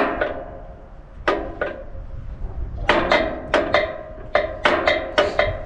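Metal-on-metal clinks from a wrench and the lever fittings while the pivot bolt of a log splitter's control lever is worked. There are about fourteen sharp clinks, each with a short ring, in irregular clusters: two at the start, two about a second in, and a quick run through the second half.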